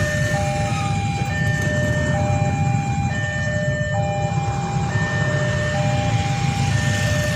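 Two-tone hi-lo warning siren alternating between a higher and a lower tone just under once a second, over a steady low rumble.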